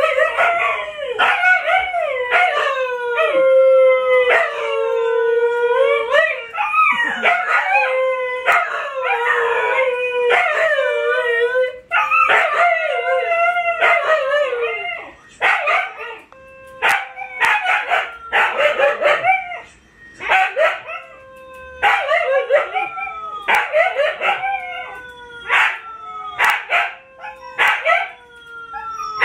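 Two Siberian huskies howling together, their long wavering howls overlapping and gliding downward in pitch. About halfway through, the howling breaks into shorter, separate calls about one a second, while a steadier held howl goes on underneath.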